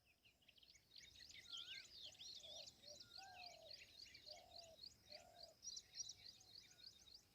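Faint chorus of several birds chirping: many quick, high chirps overlapping, with a few lower calls repeated about once a second.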